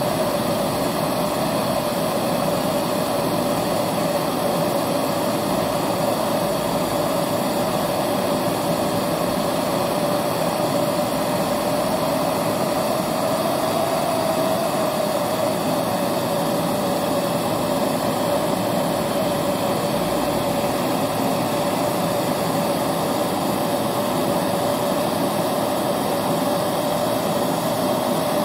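Hotery HZ-8389 MAPP-style hand torch burning liquefied petroleum gas, its flame hissing steadily with a constant mid-pitched tone, while it heats a copper pipe joint for brazing.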